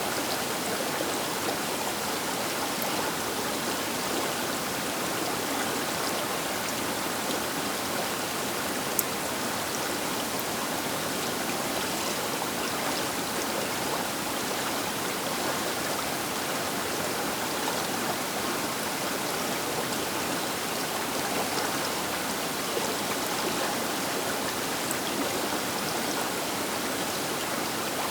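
A river flowing: a steady, even rushing of water with small splashes and droplet ticks.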